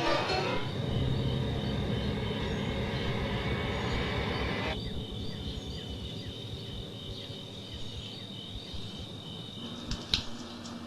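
Insects chirping steadily over a low, even rumble of outdoor background noise, with a single sharp click near the end.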